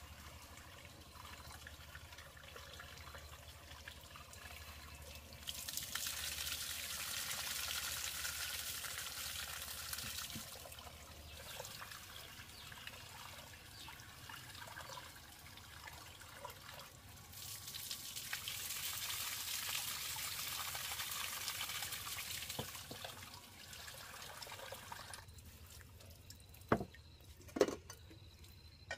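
Water running from a tap spout into and over a metal pot as it is rinsed and scrubbed by hand, swelling to a loud splashing rush twice for several seconds each. A few sharp knocks near the end.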